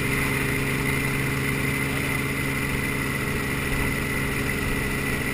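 Light helicopter in flight heard from inside the cabin: a steady engine and rotor drone with a steady high whine over it.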